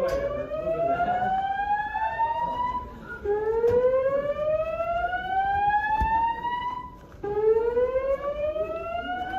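Building fire alarm voice-evacuation system sounding its whoop tone. Each whoop rises steadily in pitch for about three and a half seconds, then drops back and starts again, repeating about every four seconds.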